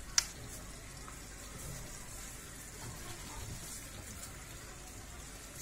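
A sharp click a moment in, then a faint, steady hiss and bubble of a pan of conger eel, cherry tomatoes and water simmering on a gas burner.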